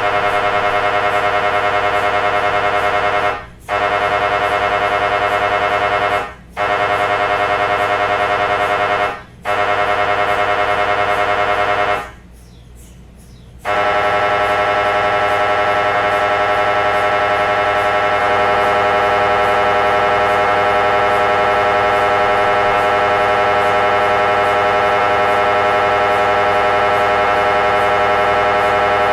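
MRI scanner buzzing during a scan in a loud, steady electronic tone with many overtones. It drops out briefly three times, then for about a second and a half, then resumes and runs on steadily.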